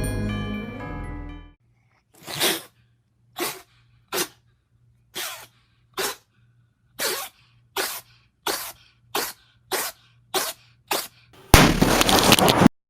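A run of about a dozen short sneezes, coming closer and closer together, then a loud burst of noise lasting about a second near the end.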